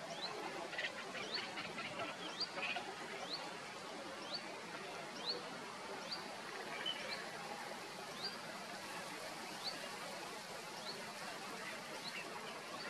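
A bird calling: a short, high, down-slurred whistled note repeated about once a second, spacing out towards the end, with a few fainter chirps in the first seconds. Under it runs a steady hiss of wind and water.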